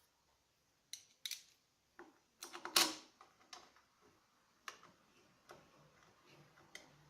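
Irregular metallic clicks and clinks of nuts and hand tools being handled as hardware goes onto an intake manifold adapter's studs. The loudest cluster comes about three seconds in.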